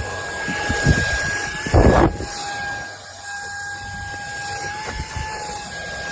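Wkzay handheld cordless vacuum running, a steady high motor whine over airflow hiss, with a loud rattling knock about two seconds in.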